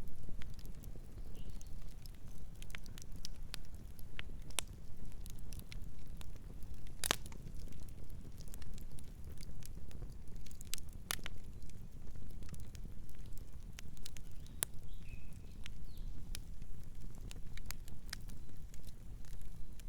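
Campfire burning: wood crackling with scattered sharp pops over a steady low rumble, one louder pop about seven seconds in.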